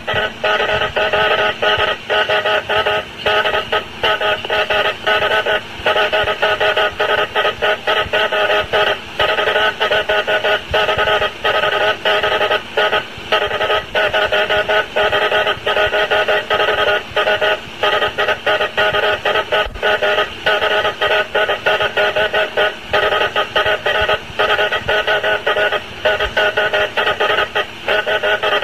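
Morse code wireless signal: a buzzy tone keyed on and off with many short breaks, sending an SOS distress call.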